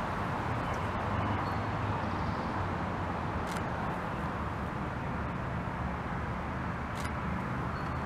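Steady outdoor background noise, a low rumbling hiss, with two faint sharp clicks about three and a half seconds apart.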